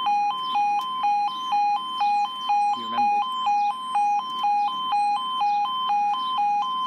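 Level crossing barrier alarm: an electronic two-tone warning switching between a higher and a lower tone about twice a second, cutting off at the very end.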